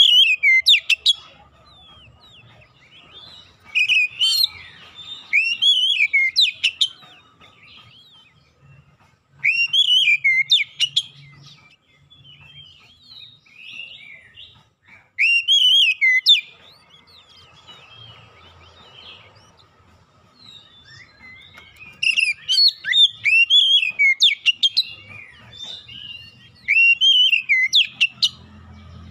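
Oriental magpie-robin (kacer) singing loud bursts of whistled notes that sweep up and down. There are about six phrases, each a second to three seconds long, with short pauses between them.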